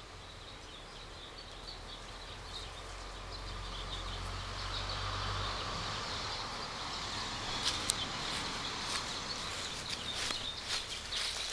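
Outdoor background noise that swells gently for a few seconds with a low rumble, with a few faint short chirps or clicks later on.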